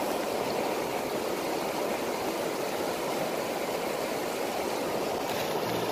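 Shallow river rapids rushing over rocks: a steady, even rush of white water.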